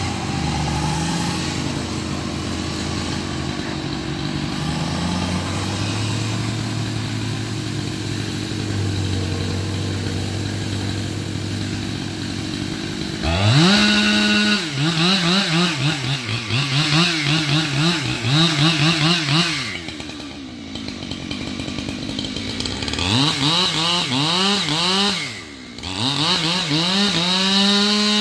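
An engine runs at a low steady idle for about the first thirteen seconds. Then a chainsaw revs up sharply and cuts wood, its pitch dipping and recovering again and again as the chain bites. It eases back a little past twenty seconds in, then revs and cuts again to the end.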